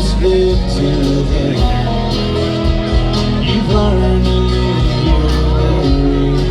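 Live country band playing an acoustic arrangement: strummed acoustic guitars over a bass line, with sustained melody notes and a steady rhythm.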